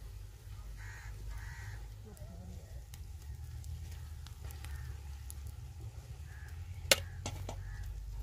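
Crows cawing faintly a few times over a low steady rumble, with one sharp knock about seven seconds in.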